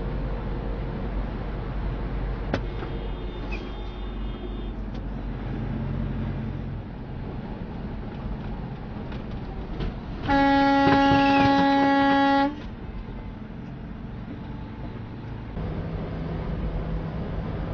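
Truck air horn blown once, a single deep steady tone held for about two seconds, over steady road noise from a moving truck.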